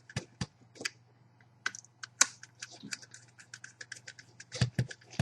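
Small screwdriver tightening the terminal screw on a CCTV balun connector: a run of irregular light clicks and ticks, several a second, as the tool and the small metal and plastic parts are worked, a few clicks louder than the rest.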